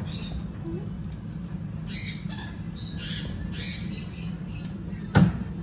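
Shop background with a steady low hum, short high squawks and chirps in the middle, and one loud, sudden thump near the end.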